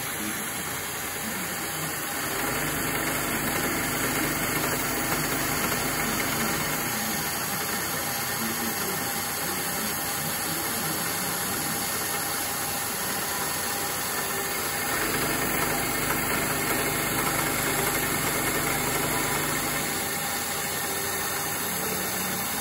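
Milling machine spindle running a half-inch carbide end mill on a finish pass through a keyway slot in a 1018 steel hub: a steady machining noise with an even hiss. A low hum swells about two seconds in and again around fifteen seconds.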